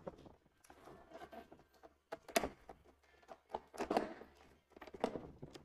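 Hard plastic panels of a stacking locker cabinet knocking and clicking as a layer is pressed into place, in a few irregular knocks with one sharp snap about two and a half seconds in.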